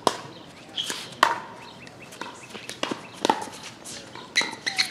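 Pickleball rally: paddles hitting the hollow plastic ball, a string of sharp pops every second or so.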